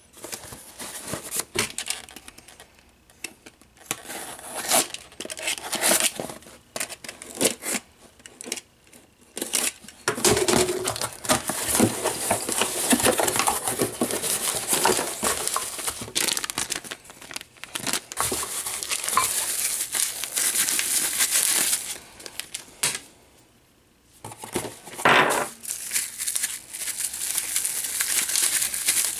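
Plastic bubble-wrap packaging and a cardboard box being handled: crinkling and rustling as the box is opened and its contents unwrapped by hand. Scattered at first, then nearly continuous for about ten seconds, a brief pause, then more crinkling.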